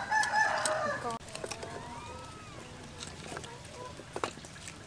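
A chicken calling loudly for about the first second, followed by fainter calls, with a few light knocks of firewood sticks being laid into a clay stove later on.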